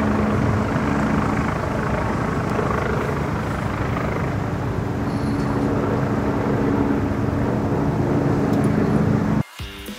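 A loud, steady rushing noise with a low, even hum under it, like a machine or engine running. It cuts off suddenly about nine seconds in.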